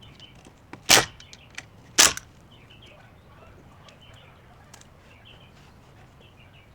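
Two loud, sharp knocks about a second apart, with faint bird chirps behind.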